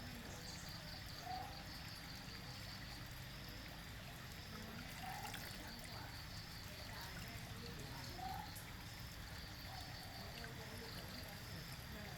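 Small pump-fed waterfall trickling steadily over rocks into a garden pond. Three short chirps stand out about a second, five seconds and eight seconds in.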